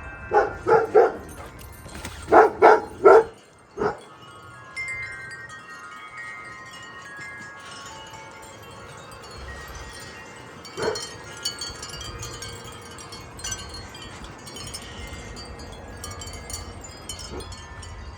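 Wind chimes ringing in gusty wind, their tones held and overlapping, with a steady low rumble of wind. In the first four seconds a dog barks seven times in two quick runs, louder than the chimes.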